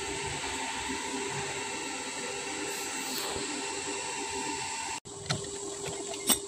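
Metal lathe running steadily, a crane clutch gear clamped in its chuck: an even machine hum with a few steady tones. It breaks off briefly about five seconds in, and a short knock comes near the end.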